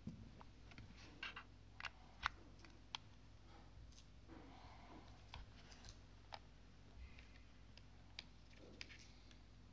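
Faint scattered clicks and taps from an XTAR VC4 plastic battery charger and its power cable being handled, one click a little over two seconds in louder than the rest.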